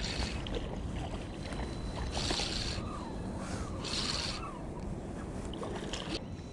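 Wind rumbling on the microphone while a hooked fish is wound in on a Shimano Stradic 2500 spinning reel, with faint ticks from the reel and two short hissing swishes about two and four seconds in.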